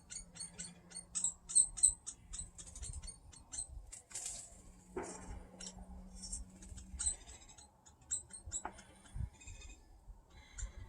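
Woodpeckers, taken for a hairy woodpecker adult and its young, chattering: a fast run of short, high-pitched chirps, several a second, as the parent feeds the begging young bird. The chirps come thick at first and thin out in the second half.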